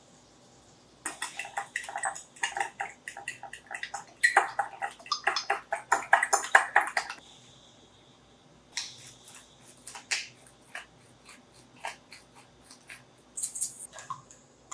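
Eggs being beaten with a utensil in a glass dish: rapid clinking and tapping against the glass, which stops about seven seconds in and gives way to a few lighter, scattered taps.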